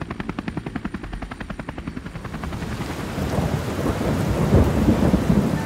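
Helicopter rotor sound effect, an even chop of about eight beats a second, fading over the first two and a half seconds into a deep, rough rumble that swells to its loudest about four and a half seconds in.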